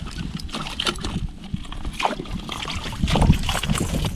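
Walleye splashing in a slushy ice-fishing hole as it is hauled out, then flopping onto the ice, with scattered knocks and a louder thump about three seconds in.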